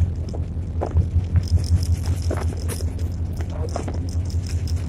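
Inside the cab of an EMD SD24 diesel locomotive: the turbocharged V16 diesel engine makes a steady, deep throb, with short rattles and clicks from the cab.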